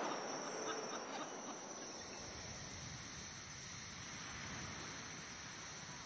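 Tropical forest background of insects, a steady hiss. A thin high insect tone stops about a second in.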